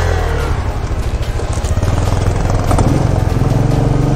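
Motorcycle engine running under way, its revs climbing about three seconds in.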